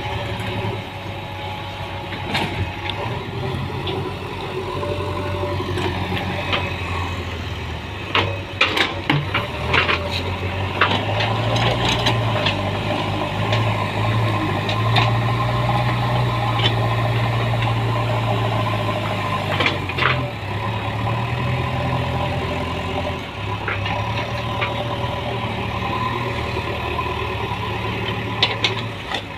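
Heavy diesel machinery engine running steadily, working harder for several seconds midway, with sharp metal clanks and knocks scattered through the work.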